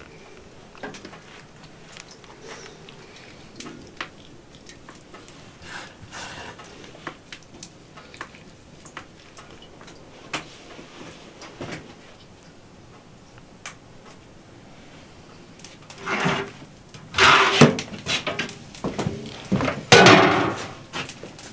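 Soft handling noises and faint clicks as hands stuff fish with herbs on a metal tray. About 16 s in come several loud scraping clatters, each under a second, as metal baking trays are moved and slid across the table.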